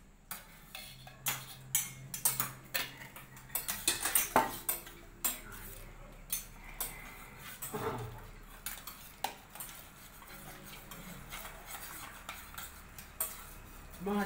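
A steel spoon clinking and scraping against a stainless steel pressure cooker as cooked noodles are stirred, with other steel utensils knocking. A quick run of sharp clinks comes in the first few seconds, then softer, sparser scraping.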